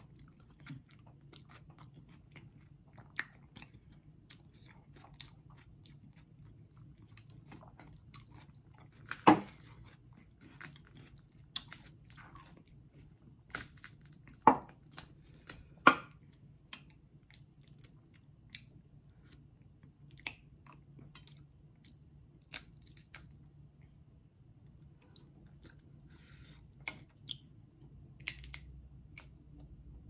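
Close-miked chewing of crab meat, with many short sharp cracks and clicks of crab-leg shell being snapped and pulled apart by hand; the three loudest cracks come about nine, fourteen and sixteen seconds in.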